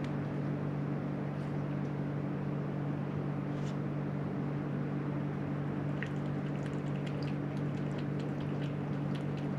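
Faint, quick crunching clicks, typical of a cat chewing dry food, mostly in the second half, over a steady low machine hum.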